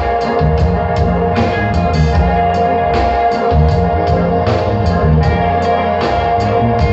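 Live rock band playing an instrumental passage: a drum kit keeps a steady beat under moving bass notes and a held keyboard tone, with no vocals.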